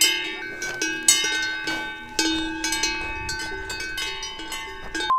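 Cowbells on grazing cows clanking irregularly, several bells of different pitches struck over and over, each strike ringing on and fading.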